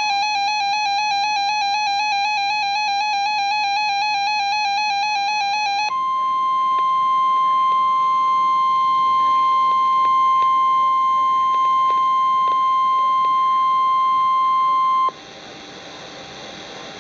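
EAS alert tones on NOAA Weather Radio: a rapidly warbling two-tone attention signal, then about six seconds in a steady single high tone, the weather radio warning alarm tone near 1 kHz. It holds for about nine seconds, then cuts off suddenly, leaving faint radio hiss.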